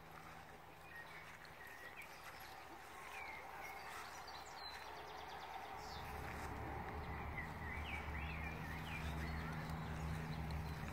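Outdoor ambience with faint, scattered bird chirps; about halfway through a low, steady hum comes up and grows louder.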